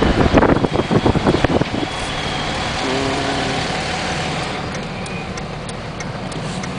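Wind buffeting the microphone for about the first two seconds, then the steady running noise of a car driving slowly, heard from inside the cabin.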